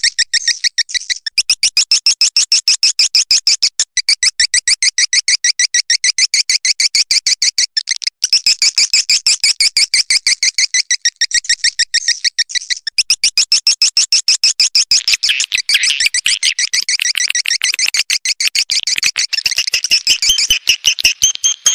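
Swiftlet lure call: a fast, even stream of high chirps, several a second. About fifteen seconds in it turns into a denser, lower chatter.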